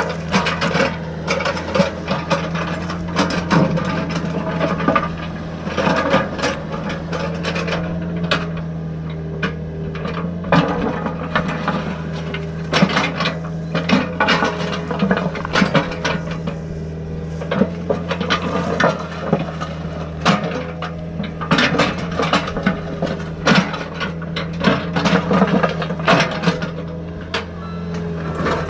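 Small excavator working sand: a steady motor hum under continual scraping, clicking and clattering from its moving parts and bucket.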